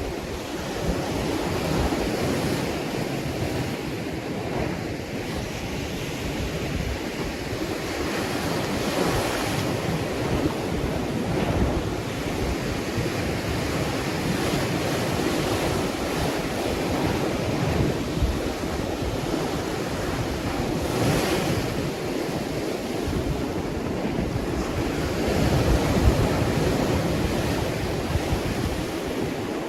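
Ocean waves washing in and out, a steady rush of surf that swells and eases over several seconds, with wind buffeting the microphone.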